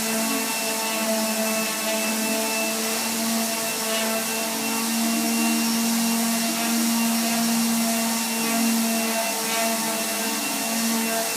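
Electric power sander running steadily against wood: a constant motor hum over a hiss of sanding.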